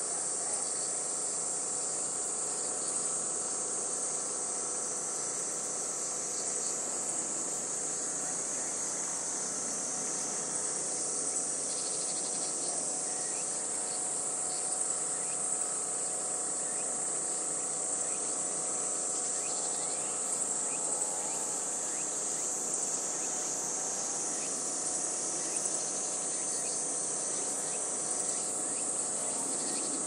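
Steady, high-pitched chorus of insects, one continuous shrill drone that holds unbroken throughout.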